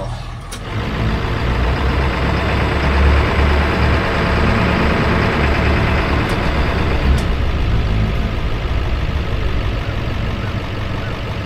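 GMC dump truck's big diesel engine running, louder from about a second in and staying strong and steady.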